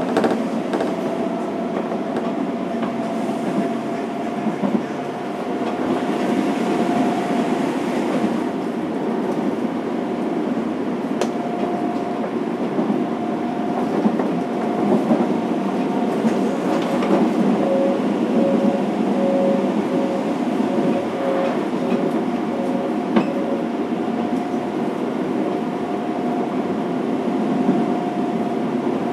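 Onboard running sound of a Fukuoka City Subway 1000 series train, rebuilt from chopper control to a VVVF inverter: a steady rumble of wheels on rail with a thin steady whine. A few sharp clicks come through, and a pulsing tone is heard in the middle.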